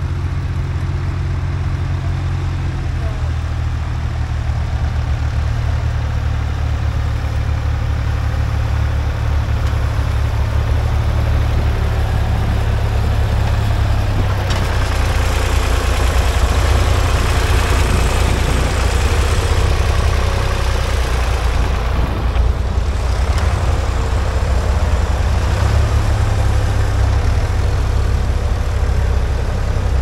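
Vintage tractor engine running steadily while it pulls a mounted plough through the soil. It gets louder and brighter about halfway through as the tractor comes close, then eases off.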